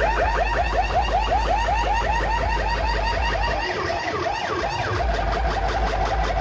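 Siren-like DJ sound effect of rapidly repeating rising chirps, about six a second, over heavy bass from a large street sound system. The bass drops out for about a second past the middle, then comes back as the effect turns into a faster pulsing tone.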